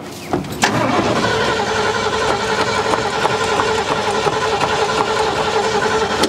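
1972 Ford F100's starter cranking the engine steadily from about a second in, without it firing. The owner suspects that no fuel is reaching the Edelbrock four-barrel carburetor, and the carburetor later proved to be junk.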